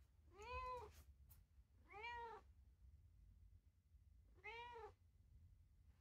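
Domestic cat meowing three times, a short call roughly every two seconds, each rising and then falling in pitch.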